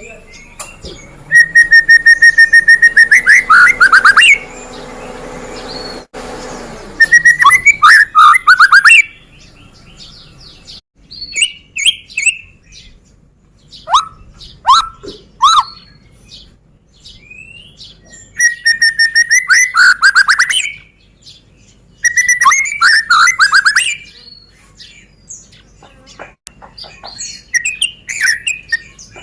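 White-rumped shama (murai batu, Medan type) singing loud whistled phrases about seven times. Each phrase is a held steady note that breaks into a rapid run of falling notes, with shorter whistles and chirps between phrases.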